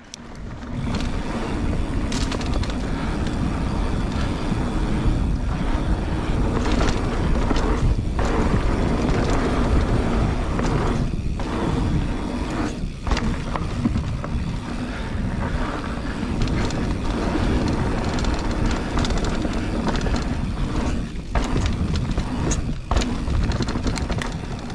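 Mountain bike ridden fast over a dirt singletrack trail: a loud, steady rushing rumble of tyres and air on the microphone, with scattered sharp knocks and rattles from the bike over bumps. The noise comes up suddenly about half a second in.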